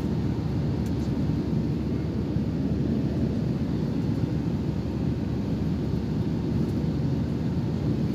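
Steady low rumble inside an airliner's passenger cabin in flight: engine and airflow noise, even and unbroken.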